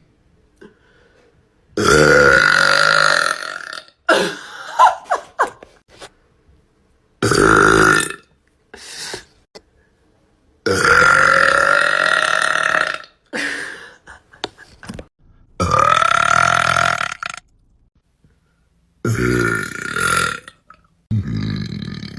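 A woman burping loudly: five long, drawn-out burps of one to two seconds each, with short small noises between them.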